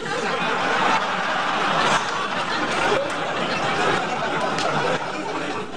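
Several people laughing hysterically together, their laughter merging into one dense, steady wash that eases a little near the end.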